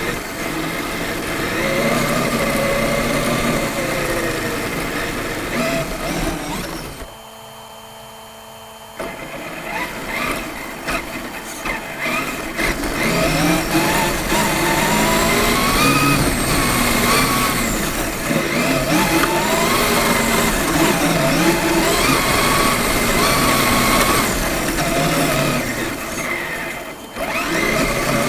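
Traxxas E-Maxx electric RC monster truck driving hard over grass, its motors and drivetrain whining up and down in pitch with the throttle. About seven seconds in the whine drops away for roughly two seconds, leaving a faint steady hum, then picks up again.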